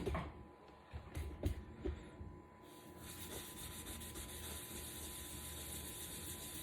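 A few light knocks, then from about three seconds in a wet sponge loaded with cleaning paste rubbing steadily on a glass stovetop, a soft, even scrubbing hiss.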